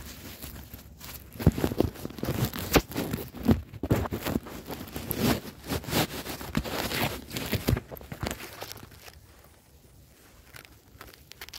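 Irregular rustling, scraping and knocking of hands handling a camera and its mount right at the microphone. It dies down about eight seconds in.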